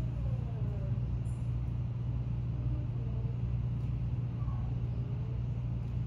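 Steady low mechanical hum, even and unbroken, with faint gliding pitched sounds above it.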